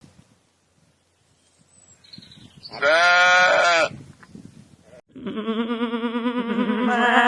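A single loud bleat of about a second, sheep- or goat-like, after a near-quiet start; about a second after it ends, a long, loud, wavering pitched call begins and carries on.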